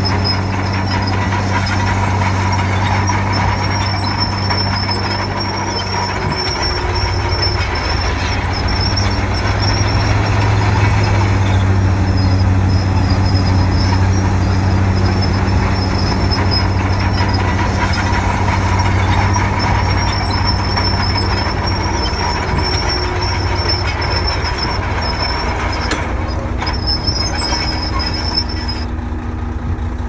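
Komatsu D50P crawler bulldozer's diesel engine running steadily while working, with a thin, high-pitched squeal over the engine that stops shortly before the end.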